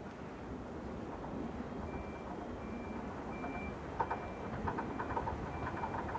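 381 series train approaching with a low rumble, then wheels clattering over the rail joints from about four seconds in. A short high beep repeats in the background from about two seconds in.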